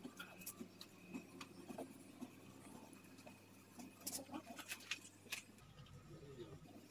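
Faint, scattered light clicks and scuffs of a rag or sponge being wiped over a car's painted body panel, cleaning the yellowed white paint with a body-cleaning liquid. The clicks come thicker about four to five seconds in.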